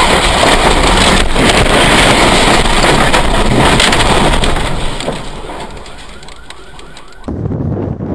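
Strong wind gusting: a loud rushing noise with scattered rattling knocks that eases after about five seconds, with a fast run of short whistling tones before it cuts off abruptly about seven seconds in.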